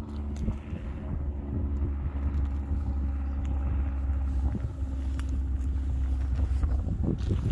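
Wind rumbling on the microphone, with a steady low hum running underneath.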